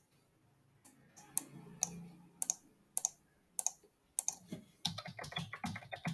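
Computer keyboard and mouse clicking: single clicks about every half second, then a quick run of keystrokes over the last second or so.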